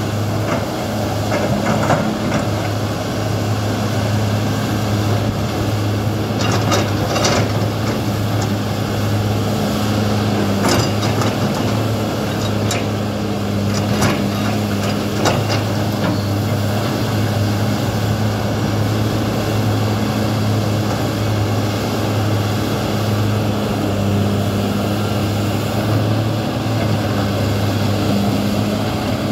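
Kobelco SK200 excavator's diesel engine running steadily under working load while the boom and bucket move, a constant low drone. A few sharp knocks come in the first half.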